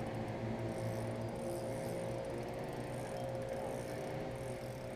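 Boat motor running steadily, a constant whine over a low hum.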